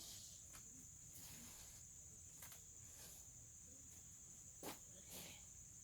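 Crickets chirring steadily in one continuous high-pitched drone, faint. A few soft knocks and rustles cut in, the loudest about three-quarters of the way through.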